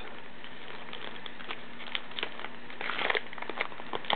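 Foil wrapper of a 2008 Topps baseball card pack crinkling as it is handled and pulled open, in short irregular crackles that are busiest about three seconds in.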